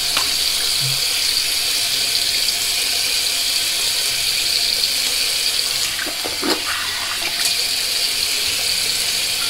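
Water running steadily from a bathroom tap into a sink.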